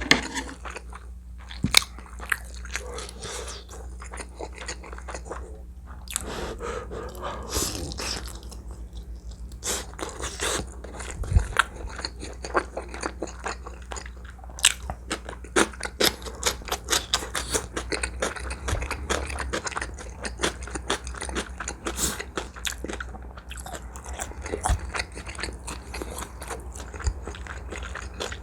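Close-miked mouth sounds of eating: chewing, biting and wet smacking with many short crunchy clicks, as spicy braised chicken with Spam and fried egg is eaten.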